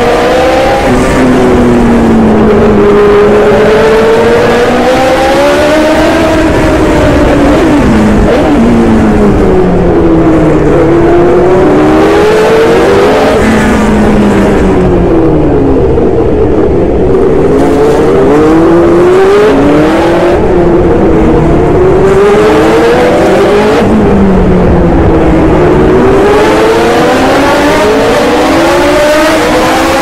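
Onboard sound of a 1974 Hesketh 308 Formula One car's Cosworth DFV V8 at racing speed, the revs climbing under acceleration and falling through gear changes and braking, again and again through the tight corners.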